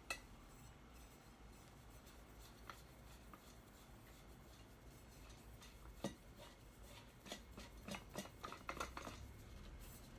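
Near silence with faint handling of vacuum parts being fitted together during assembly: one sharp click about six seconds in, then a run of small clicks and rubbing sounds a little later.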